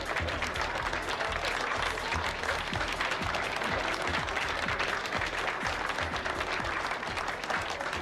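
A crowd of party guests applauding over dance music with a steady beat.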